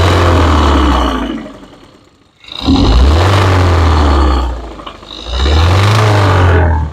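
Car engine revved three times in quick succession with one cylinder's ignition coil unplugged. It has a bottom-end knock that the missing cylinder does not change, suspected to be a worn connecting rod or rod bearing.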